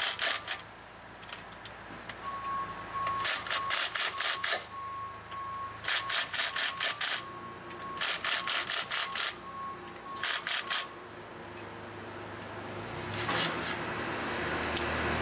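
Cordless impact driver hammering in short bursts, about six in all, on jacking bolts threaded into a rusted brake rotor, working them in turn to press the rotor off the hub.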